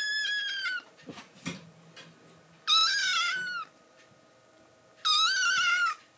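Kitten meowing: three high, thin meows of about a second each, the first ending just under a second in, the next two about three and five seconds in. A few soft knocks come between the first two meows.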